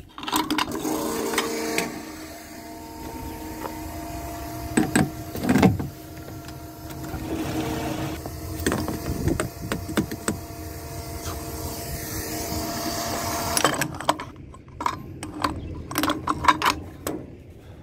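Fill-Rite FR711V 115 V electric fuel transfer pump running with a steady hum while fuel flows through the hose into a tractor's tank, with a couple of knocks about five seconds in. The pump stops about 14 seconds in, followed by a few clicks and knocks as the nozzle and pump are handled.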